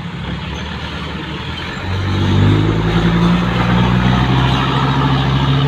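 Dump truck's diesel engine running close by, getting louder about two seconds in as it revs up slightly, then holding steady.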